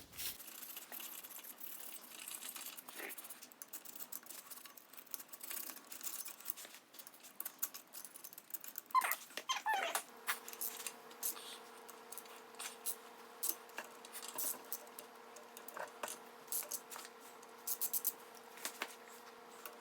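Light scraping and many small clicks of hand cleaning work on the grimy engine case around the oil pump of a VW Type 1 1600 engine. About halfway through, a steady low hum starts and continues under the clicks.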